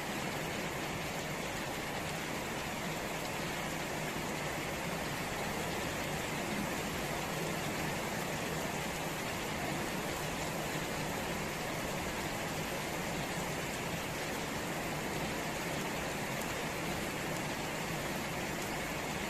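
Steady rain falling on wet ground, puddles and garden foliage: an even hiss that does not let up.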